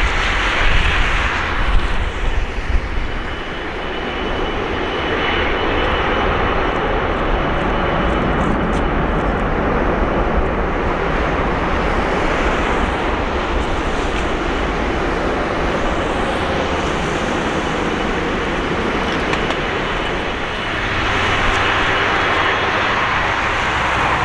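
Airbus A330-300's Rolls-Royce Trent 700 turbofans running at taxi power as the airliner rolls slowly: a steady jet rumble and hiss with a faint high whine. Wind buffets the microphone in the first few seconds.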